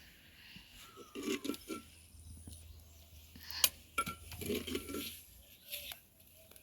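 Metal utensils clinking and scraping against dishes and cookware as soup is served, with one sharp clink a little past halfway through.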